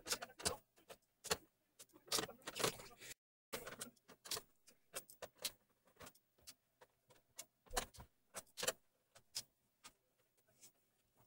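Irregular light clicks, taps and rattles of hands handling the plastic rear cover of an LCD TV. They are busiest in the first few seconds, break off briefly just after three seconds, then come more sparsely.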